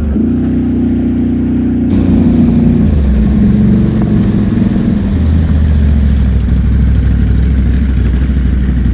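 ATV engine running under throttle while wading through shallow floodwater, with water splashing around the tyres. The engine note shifts in pitch a few times.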